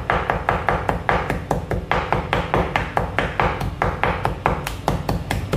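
A large cleaver chopping quickly on a wooden chopping board, mincing pork, in a fast, even rhythm of sharp knocks.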